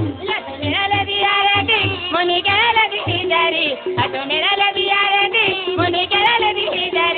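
Song with a gliding melody over a steady drum beat.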